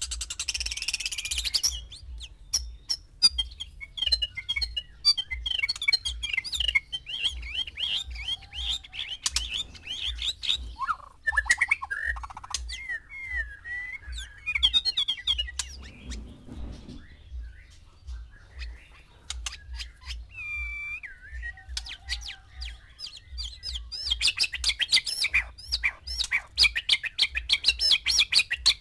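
White-rumped shamas calling and singing: rapid chirps, sharp clicks and short whistled phrases. It is busiest near the start and again in the last few seconds, with sparser song phrases between.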